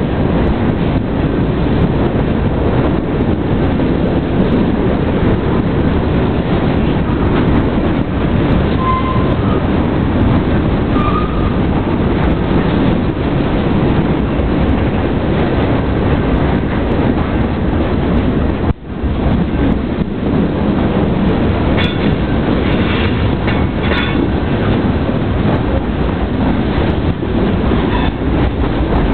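Freight cars of a Union Pacific manifest train rolling past close by: a steady loud rumble of steel wheels on rail with clacking over the joints. Brief high wheel squeals come in a few times, mostly in the second half, and the sound cuts out for an instant about two-thirds through.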